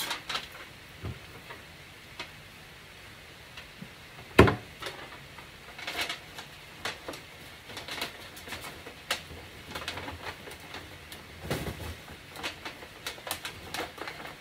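A thin aluminum sheet crinkling and clicking as it is handled and pressed around a cone-shaped tree form. There is a single sharp knock about four seconds in, and more scattered crackles follow.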